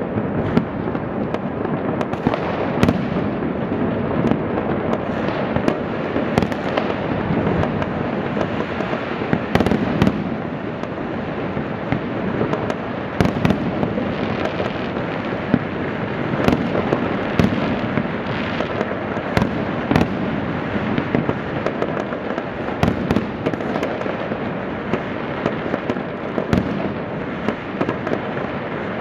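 Fireworks going off in large numbers: a continuous dense crackle and rumble, punctuated by frequent sharp bangs at irregular intervals.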